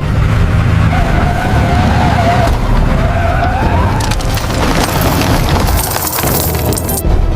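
Loud, dense action sound effects: a steady low rumble with wavering screech-like tones, then a hissing rush that builds in the second half and cuts off sharply near the end.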